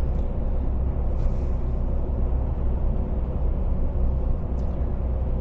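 Steady low rumble of a lorry driving, its engine and road noise heard from inside the cab.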